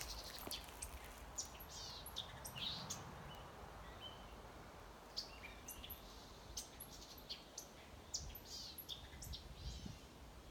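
A small bird giving a rapid, irregular series of sharp chirps and quick falling calls, agitated, as if scolding.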